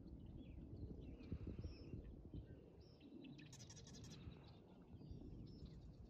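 Faint evening birdsong: several birds giving short high chirps and calls, with a rapid trill a little past halfway. A low steady rumbling noise runs underneath.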